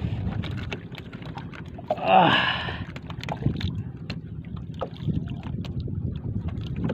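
Wind and water noise around a small outrigger fishing boat, with scattered light clicks and knocks from hands handling a net and baiting a hook. About two seconds in, a brief, loud vocal sound falls in pitch.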